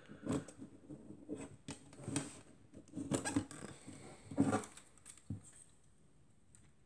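Handling noise from a KW Etui folding plate camera being folded shut: a run of light clicks, rattles and scrapes from its metal struts, lens standard and front lid, loudest about three and four and a half seconds in.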